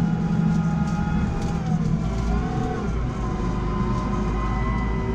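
JCB Fastrac 4220 tractor's turbo diesel engine running steadily under ploughing load, its pitch dipping and recovering slightly partway through as the load changes.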